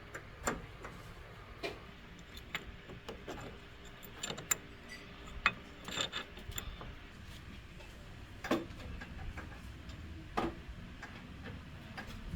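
Scattered light clicks and knocks at uneven intervals, from tools and metal parts being handled; the sharpest tap comes a little past the middle.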